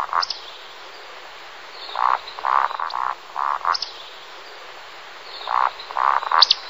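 Frogs croaking in chorus: clusters of short, rattling pulsed calls every second or so, with faint high chirps above them. The sound cuts off abruptly at the end.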